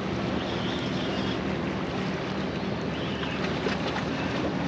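Steady drone of a motorboat engine running out in the pass, over wind and waves washing against the jetty rocks.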